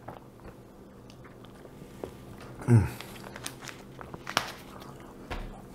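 Someone drinking from a small plastic bottle: quiet sips, then a short falling vocal sound from the drinker about three seconds in. Small plastic clicks follow as the bottle cap is handled, and a dull knock near the end as the bottle is set down on the table.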